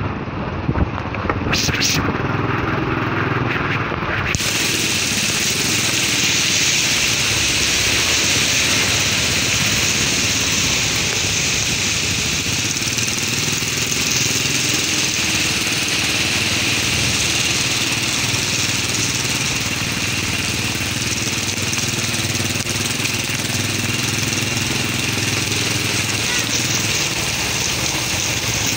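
Motorcycle engine running steadily at low road speed, with a constant hiss over it that grows much brighter about four seconds in.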